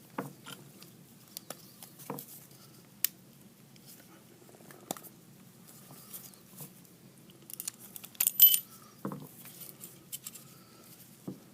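Light metallic clicks and scrapes of a Kimber Pro Carry II 1911 pistol's slide and slide stop being worked free by hand, with a louder cluster of clicks about eight seconds in.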